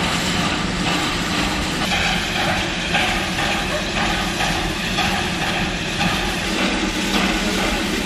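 Sugar-mill steam locomotive at work: a steady, loud rumble and hiss.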